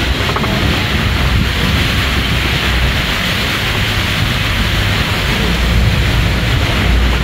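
Waterfalls splashing steadily into a rock pool, over the low, steady rumble of the open-sided safari truck's engine.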